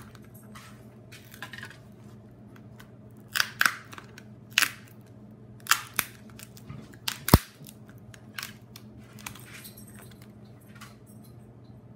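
Flat-blade screwdriver prying a pouch battery out of a Kindle tablet's plastic frame: scattered clicks, creaks and scrapes of plastic and metal, the sharpest single click about seven seconds in.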